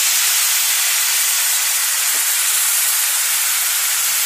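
Ground spices and oil in a kadai hissing and sizzling loudly and steadily after a splash of water, the hiss sitting high and easing slightly near the end. The water keeps the dry spice paste from burning while it is fried down.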